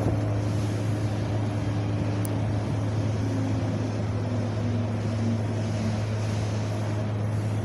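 Steady wind blowing, an even rushing sound with a constant low hum underneath and faint wavering tones in the middle.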